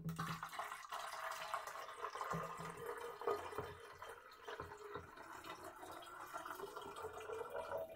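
Water pouring in a steady stream from a glass measuring cup into the filler neck of a plastic methanol-injection reservoir tank, filling it.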